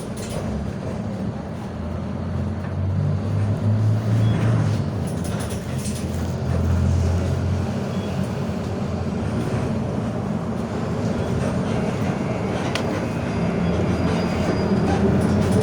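Mercedes-Benz OF 1721 bus's OM924LA 4.8-litre four-cylinder diesel engine and driveline running on the move, a steady low drone that grows louder toward the end, with the differential growling.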